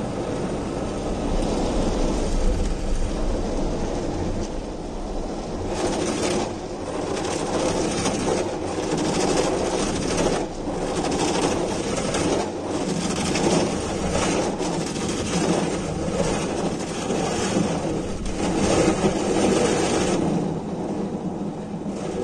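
Automatic car wash heard from inside the car: the rotating brushes scrub and slap against the body and windows with a steady rumble and clatter. A water-spray hiss comes and goes in waves from about six seconds in.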